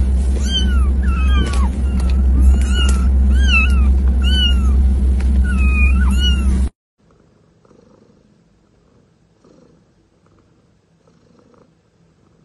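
A litter of kittens mewing, short high calls one after another over a steady low rumble. The sound cuts off abruptly about seven seconds in, leaving only faint low sound.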